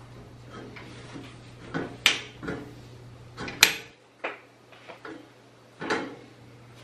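A stainless steel kettle being handled and wiped on a gas stove's grate: a few sharp metal knocks and clanks as it is shifted and its handle moves, with the rubbing of a cloth between them.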